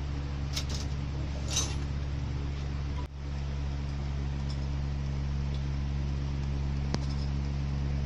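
Steady low hum of an electric motor running, with a few light clicks and rattles of metal fittings and hose being handled about a second in and again near the end.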